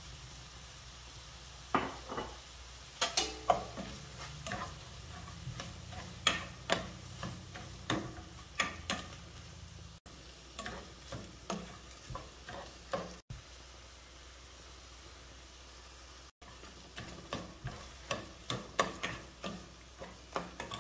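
A spatula scraping and tapping against a nonstick frying pan as napa cabbage, fish balls and shrimp are stir-fried. The strokes come in irregular clusters, stopping briefly past the middle and resuming, over a low steady hum.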